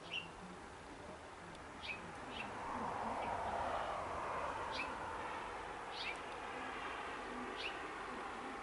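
Osprey calling: about six short, high whistled chirps, each dropping in pitch, one every second or two. A soft rushing noise swells and fades beneath them in the middle.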